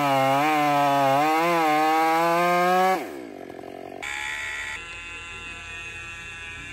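Two-stroke chainsaw running at high revs with its pitch wavering, then shut off about three seconds in, its note falling away as it winds down. After that a quieter, unclear sound follows.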